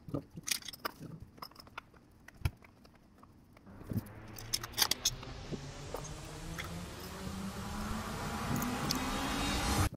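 Light clicks and clatter of metal hand tools being set into wall-mounted cardboard holders. About four seconds in, a swell of hiss and a slowly rising low tone builds steadily louder, then cuts off abruptly.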